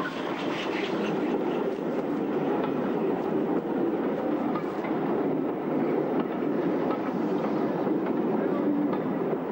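Steam-hauled passenger train rolling past close by, a steady rumble from the coaches with the wheels clicking over rail joints.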